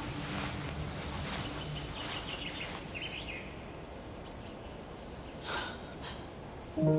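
Outdoor woodland ambience: irregular rustling, like steps through undergrowth, with faint bird chirps and one louder, sharp breath about five and a half seconds in.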